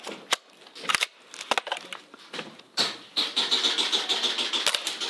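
VFC UMP gas-blowback airsoft submachine gun firing: a few separate sharp shots in the first seconds, then a quicker string of shots over a steady hiss.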